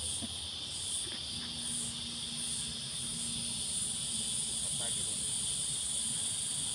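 Insect chorus: a steady, high-pitched shrill that goes on without a break.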